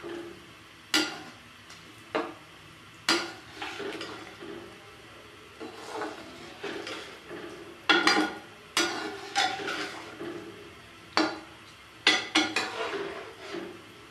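A long metal slotted spoon stirring rice through boiling gravy in a metal pot: soft sloshing and scraping, broken by repeated sharp clinks and knocks as the spoon strikes the pot.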